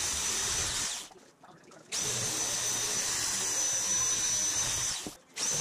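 Corded electric sheet-metal shear cutting 0.063-inch aluminum sheet, its motor giving a steady high whine. It stops about a second in, starts again a second later, and pauses briefly once more near the end.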